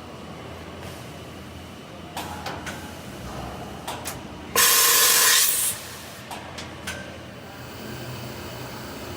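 Hartford HV-70A CNC vertical machining center running with a steady hum, with a few mechanical clicks and knocks, then a loud blast of compressed air hissing for about a second midway, followed by a couple more clicks.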